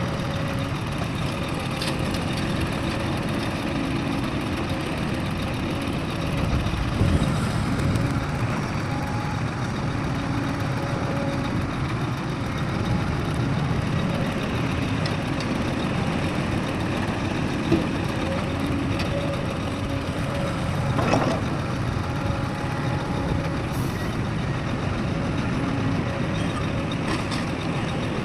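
Heavy diesel machinery, mining trucks and excavators, running steadily, with a few short, louder knocks.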